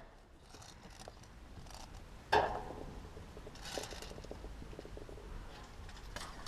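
Faint rustling of clothing and gear close to a body-worn camera, with one short sharp pop a little over two seconds in.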